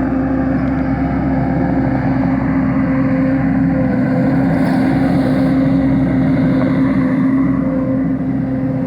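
Wacker Neuson SM100 mini skid steer's engine running steadily at a constant pitch while it works.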